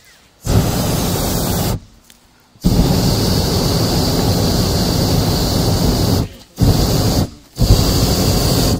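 Hot air balloon's propane burner firing in four blasts, each starting and stopping sharply: a short one about half a second in, a long one of about three and a half seconds, then two short ones near the end.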